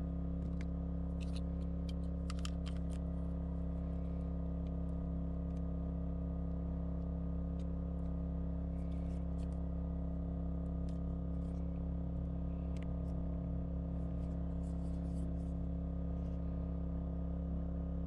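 A steady low hum with faint, scattered small clicks and taps.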